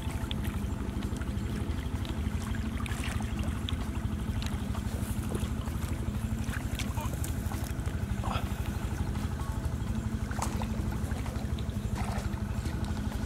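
A steady low motor-like drone, with small scattered splashes and clicks of water as bamboo plunge baskets are moved through shallow pond water by people wading.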